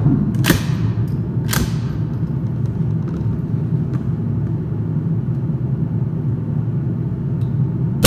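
.22 LR single-shot rifle fired once right at the end, a loud sharp report with a long echoing tail. Before it there is a steady low background noise and two fainter sharp cracks with echoes in the first two seconds.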